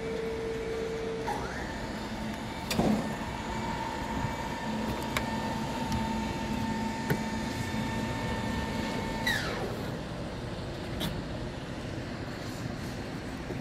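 A machine's motor whines at a steady pitch. About a second in it glides up to a higher pitch, holds there, and drops back about nine seconds in. A few sharp knocks sound over the site noise.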